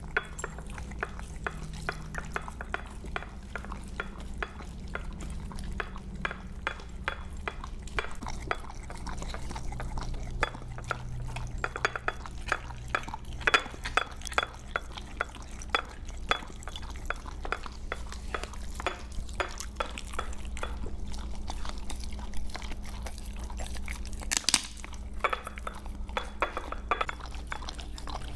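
Siberian husky lapping raw egg from a small glass dish: a steady run of wet licks, with the tongue and nose now and then knocking the glass.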